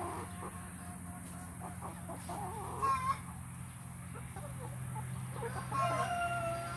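A flock of young white laying pullets clucking and calling softly while they scratch and forage. One louder call comes about three seconds in, and a couple of drawn-out calls come near the end.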